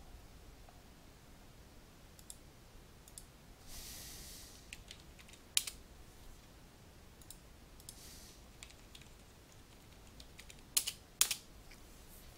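Sparse computer keyboard keystrokes and mouse clicks, a few at a time with pauses, over a faint steady hiss. The sharpest clicks come about five and a half seconds in and twice near the end. There are short soft rustling noises around four and eight seconds in.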